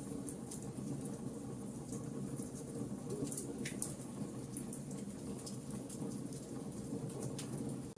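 Wood fire burning in a fireplace: a steady low rumble of flames with irregular sharp crackles and pops, one stronger crackle about halfway through.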